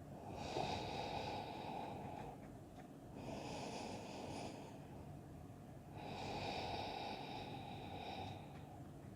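A person breathing slowly and audibly close to the microphone: three long, rushing breaths, each about two seconds, with short pauses between.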